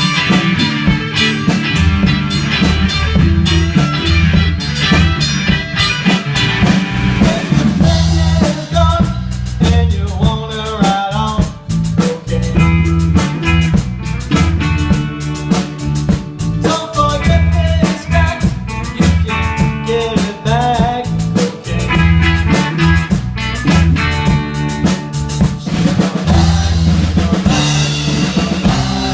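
Instrumental break of a rock song: a drum kit keeping a steady beat under bass and guitar, with no singing.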